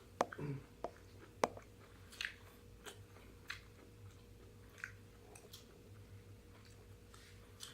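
Faint chewing and biting of food, with scattered short mouth clicks and smacks at irregular intervals.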